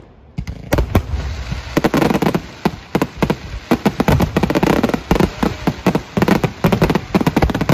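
Fireworks display: a dense, rapid barrage of bangs and crackling bursts, starting about half a second in after a short lull.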